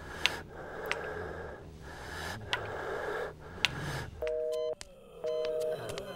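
A low hum and hiss with a few sharp clicks. Then, about four seconds in, a telephone busy signal starts: a two-note electronic tone sounding for half a second, silent for half a second, twice.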